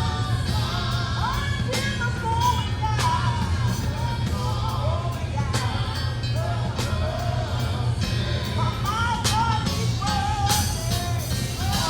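Church service music played loud over a sound system: a singer's voice over drums and very loud bass, with the bass the strongest part.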